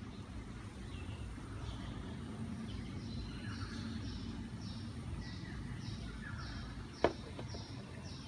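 A small bird chirping over and over, about two short high chirps a second, over a steady low background rumble. A single sharp click about seven seconds in.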